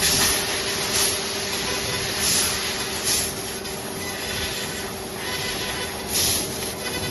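Yawei HLF 6 kW fiber laser cutter cutting 1.5 mm galvanized steel sheet with compressed-air assist: a steady hiss over a constant hum, with brighter hissing surges about once a second as cuts start and stop.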